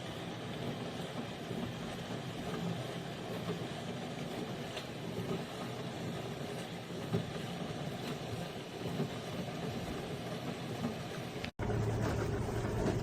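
Countertop mini dishwasher running: a steady machine hum with a rushing noise, briefly cut off near the end before a slightly louder hum resumes.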